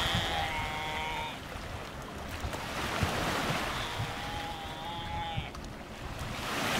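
Surf and wind on the microphone at a Galapagos sea lion colony, with two drawn-out calls from the sea lions, one at the start and one about four seconds in, each lasting about a second and a half.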